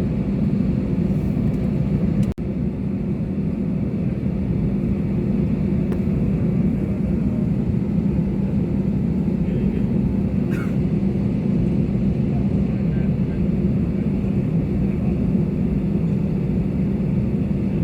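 Airbus A320neo in flight, its jet engines and rushing air making a steady, deep rumble. The sound drops out for an instant about two seconds in.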